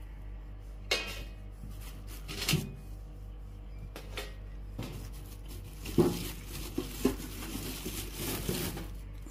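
Hands handling a stainless-steel double-tank gas deep fryer in its plastic wrap: irregular knocks and clinks of thin sheet metal with rustling plastic, the loudest knock about six seconds in, over a steady low hum.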